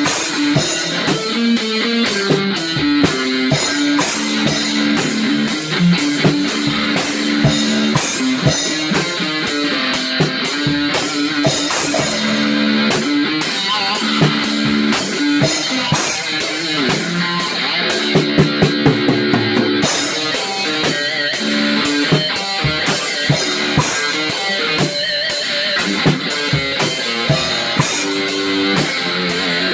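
Guitar music with a drum kit keeping a steady beat; no singing.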